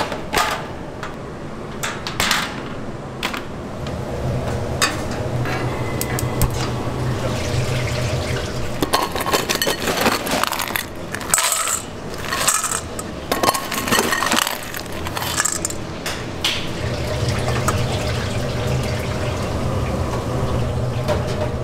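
Repeated clinks and clatters of pans and utensils being handled, over a low machine hum that starts about four seconds in, stops a few seconds later and comes back near the end.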